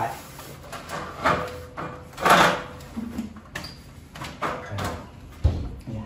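Handling noises: a cloth rustling in a few swishes, the loudest about two seconds in, and knocks from someone climbing an aluminium step ladder, with a sharp thump near the end.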